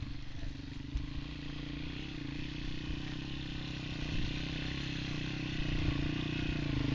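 Trail motorcycle engine running steadily as the bike climbs a rocky track towards the microphone, growing gradually louder as it approaches.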